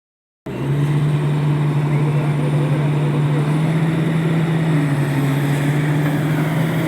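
Komatsu PC71 excavator's diesel engine running steadily at an even speed, starting about half a second in.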